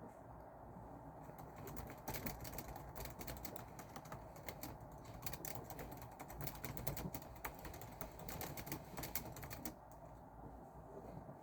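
Fast typing on a computer keyboard: a dense run of keystrokes that starts about a second and a half in and stops near the end.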